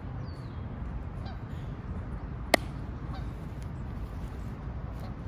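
Geese honking faintly over a steady low outdoor rumble. Near the middle a single sharp click stands out as the loudest sound.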